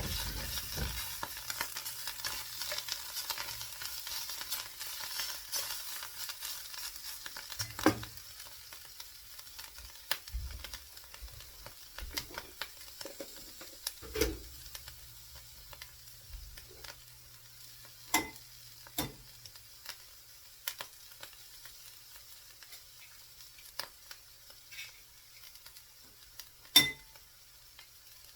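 An omelette of potato, mushroom, onion and ham sizzling in a frying pan, the sizzle dying down after about eight seconds. A few sharp knocks sound over it, the loudest near the end.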